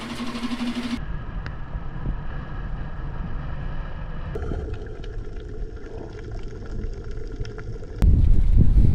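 Several short clips cut together, each with its own sound: a small dinghy outboard motor running steadily for about a second, then wind and water noise, and from about eight seconds in a louder, low underwater rumble.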